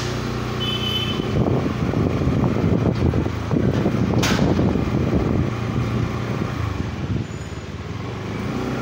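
A motor vehicle engine running close by, swelling louder through the middle few seconds and then easing off, over a steady low hum. A single sharp click about four seconds in.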